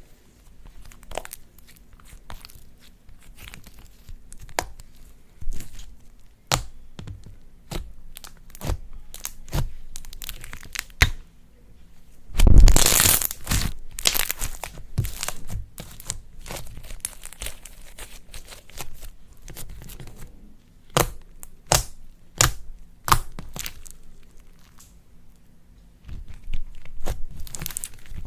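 Slime being squeezed and stretched by hand, giving irregular sticky pops and crackles, with a louder burst of crackling about thirteen seconds in.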